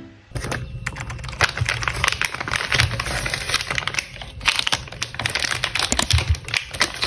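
Close-miked handling sounds of crafting materials on a tabletop: a dense, irregular run of small clicks, taps and crackles with a few louder knocks, pausing briefly about four seconds in.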